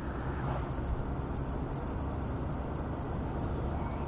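Steady rumble of a moving car heard from inside the cabin: road and engine noise.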